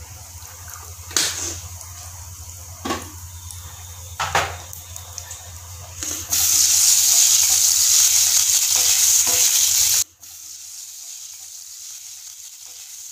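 Whole spices (cumin, bay leaves, dried red chillies, cinnamon, asafoetida) sizzling in hot oil in a kadai, with a metal spoon knocking against the pan three times in the first few seconds. About six seconds in a loud sizzling hiss starts while the spices are stirred, then cuts off suddenly about ten seconds in.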